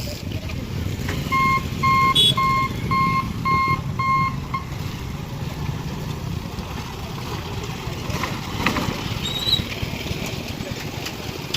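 Low, steady rumble of a passing train, with six short electronic beeps, about two a second, in the first few seconds.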